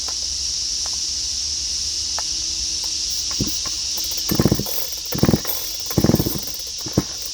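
Recoil starter of a brand-new Husqvarna 3120XP-clone chainsaw being pulled several times, the engine turning over on choke and decompression without firing; three strong pulls about a second apart with lighter ones either side, over a steady high-pitched hiss.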